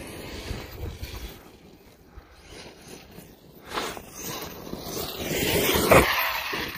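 Arrma Outcast 8S BLX electric RC truck running flat out across grass toward the microphone, its brushless motor and tyres growing louder over the last few seconds, with a sharp knock about six seconds in as it launches off a wooden ramp. Wind buffets the microphone at the start.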